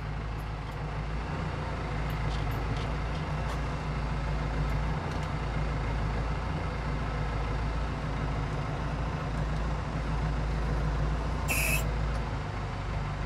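Landini Blizzard 65 tractor's diesel engine running steadily, heard from inside the cab while the tractor is manoeuvred to hitch a roller. A short hiss comes near the end.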